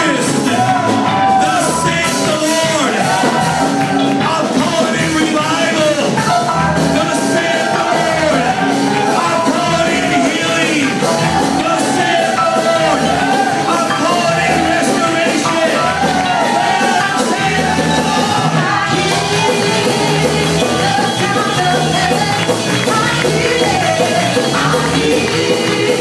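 Live gospel worship music from a church band with keyboard, loud and continuous, with voices singing over it and the congregation clapping along.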